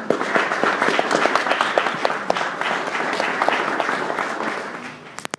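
Audience applauding: many hands clapping together, a dense patter that starts suddenly and dies away near the end.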